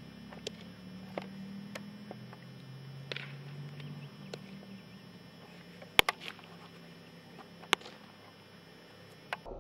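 Baseballs smacking into leather gloves during throwing and ground-ball practice: a handful of separate sharp pops, the loudest about six seconds in.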